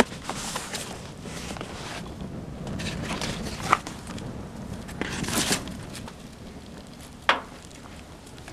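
Wood fire burning in a metal drum, crackling, with a few sharp pops from the burning wood.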